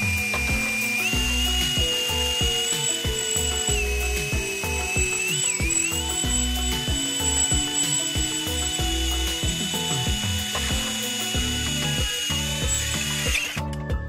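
Brushless cordless drill motor running unloaded, a steady high whine that steps up in pitch about a second in, wavers briefly near the middle and stops shortly before the end, over background music with a steady beat.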